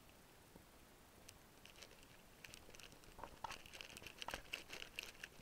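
Nylon paraglider wing fabric crinkling and rustling as the wing is handled and lifts off the launch mat, a faint run of irregular crackles that grows louder through the second half.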